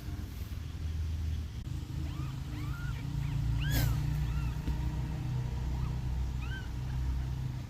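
Kittens mewing: a string of short, thin, rising-and-falling mews over a steady low rumble.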